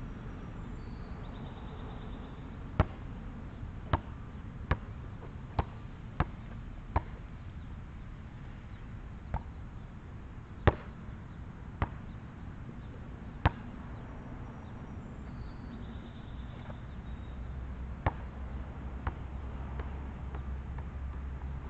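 A basketball bouncing on an outdoor asphalt court: about a dozen sharp slaps, some in quick runs under a second apart and others with longer gaps, over a steady low background rumble.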